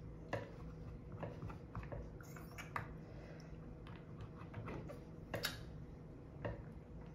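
Scattered light clicks and taps, about six over seven seconds, as a plastic oil bottle is handled against the opened metal mechanism of an overlock sewing machine while its moving parts are oiled.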